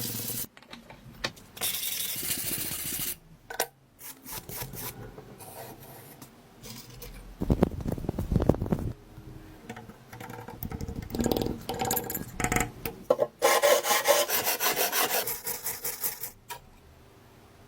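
Workshop hand work: a series of rubbing and scraping strokes broken by scattered clicks, with a louder, deeper burst about halfway through and another dense stretch of scraping near the end.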